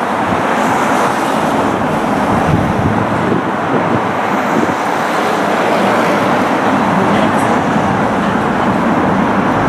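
Docklands Light Railway train approaching along the track, a steady running noise mixed with the hum of surrounding traffic.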